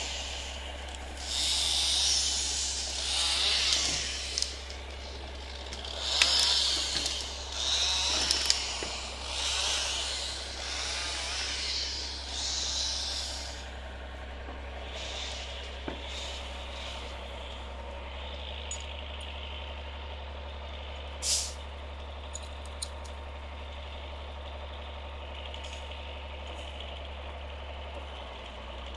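Mercedes Unimog engine running steadily at low speed. Over the first half come a series of loud hissing rushes, each a second or two long. A single short sharp noise comes about two-thirds of the way through.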